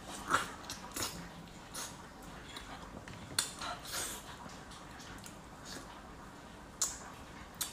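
Eating sounds of soft, ripe durian flesh being bitten and chewed: wet mouth smacks and chewing, with a few short, sharp clicks scattered through.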